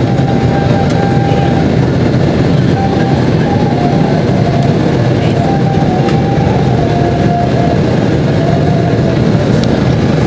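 Steady, loud cabin roar of an Airbus A320-232 in the climb after takeoff, heard from a window seat over the wing: the deep rumble of its IAE V2500 turbofan engines and the airflow, with a faint wavering whine above it.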